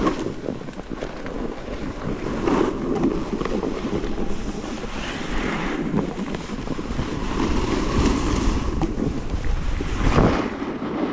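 A snowboard sliding and scraping over hard-packed groomed snow, with wind rushing over the body-mounted camera's microphone; the scraping swells several times as the board turns.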